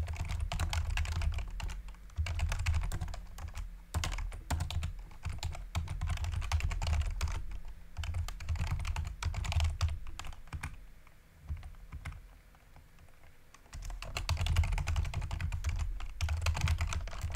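Computer keyboard typing in quick runs of keystrokes, with a brief pause about four seconds in and a longer lull of about two seconds past the middle.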